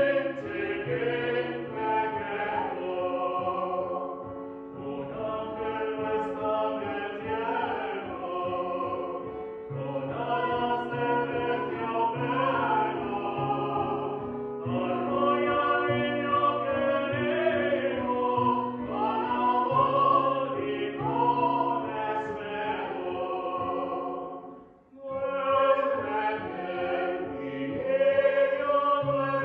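A small mixed vocal ensemble of women's and men's voices singing a Spanish Christmas carol (villancico) in harmony, with held low notes under the moving upper voices. The singing breaks off briefly about 25 seconds in between phrases, then goes on.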